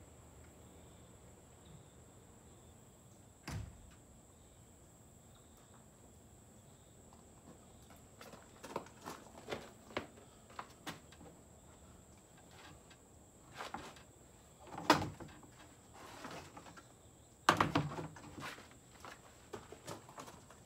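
Footsteps with scattered knocks and clunks of someone moving about and handling things, separated by quiet stretches.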